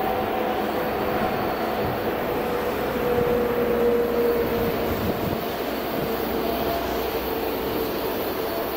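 Freight train behind an electric locomotive rolling around a curve: a steady rumble of wheels on rail with a couple of held squealing tones from the curve, swelling a little about three to four seconds in.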